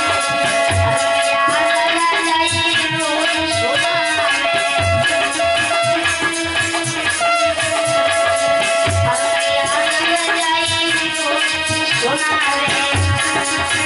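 Hindu devotional aarti music: long held melody notes over a steady shaker-like rattle, with a deep drum beat about every two seconds.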